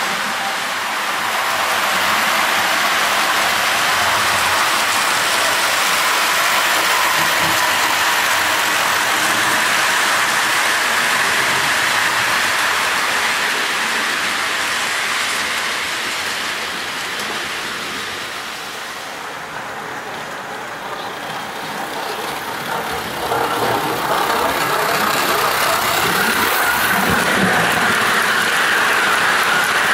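Darstaed O gauge tinplate Pannier tank engine and coaches running on the model railway track: a steady rolling rattle and whir of the wheels. It fades somewhat about two-thirds of the way through, then grows louder again as the coaches pass close.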